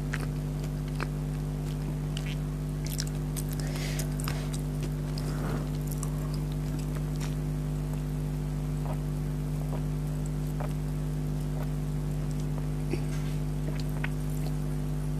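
Chewing and mouth sounds from eating chicken nuggets: scattered small wet clicks, thickest a few seconds in, over a steady low electrical hum.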